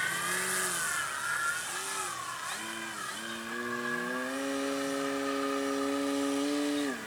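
Electric motor and propeller of an E-flite RC aerobatic plane in flight, a whine that wavers in pitch at first. About three seconds in it rises and holds steady at high throttle, then falls off sharply near the end as the throttle is cut.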